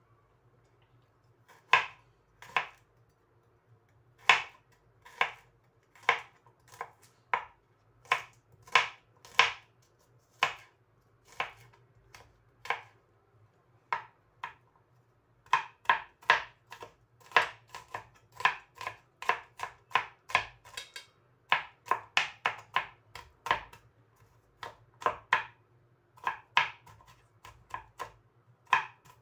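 Kitchen knife chopping ingredients on a plastic cutting board: a run of sharp, irregular knocks, about one or two a second, with a short pause midway.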